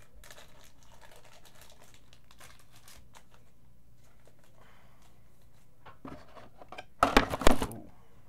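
Faint rustling of trading-card packaging being handled, then about seven seconds in a loud burst of crinkling and tearing lasting about a second.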